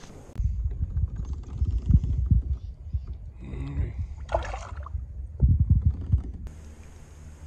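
River water sloshing and splashing beside a kayak as a smallmouth bass is held by the lip in the water and released, with irregular low bumps and rumbles throughout.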